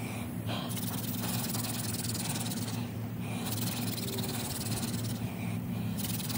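Hand-drill friction fire: a yucca spindle spun between the palms grinds into a pine fireboard with a steady rasping hiss, working up an ember. The hiss breaks off briefly every two to three seconds as the hands go back to the top of the spindle.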